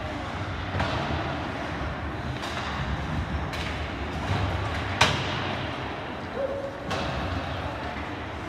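Ice hockey play in an arena: a steady hollow rink background with several sharp knocks of sticks and puck against the ice and boards, the loudest and sharpest about five seconds in.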